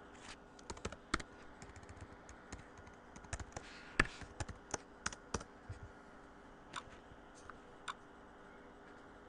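Typing on a computer keyboard: a quick, uneven run of key clicks lasting about six seconds, then a few single clicks near the end.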